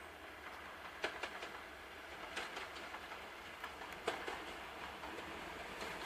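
Class 37 diesel locomotive approaching, heard faintly as a low steady rumble with a scatter of sharp clicks and clacks.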